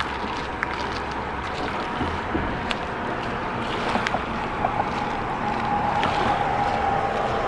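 Steady motor noise with an engine drone, a humming tone that grows louder about six seconds in, over a background rumble.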